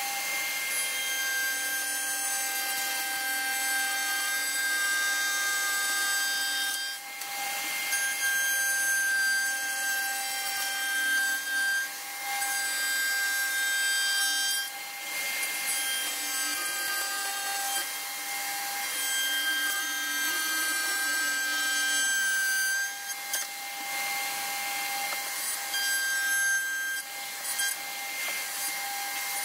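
Handheld router mounted in a router table running at full speed with a steady high whine while its bit cuts a rebate along the edge of a wooden board fed against the fence in repeated passes. The sound drops briefly a few times as passes end and the board is repositioned.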